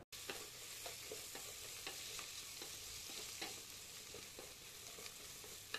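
Onions, whole spices and fresh mint and coriander leaves frying in oil in an aluminium pot: a faint steady sizzle with the light scrape and tap of a wooden spatula stirring them.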